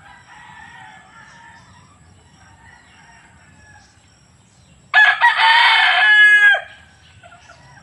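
A gamecock rooster crows once, loudly, about five seconds in; the crow lasts about a second and a half and drops in pitch at the end.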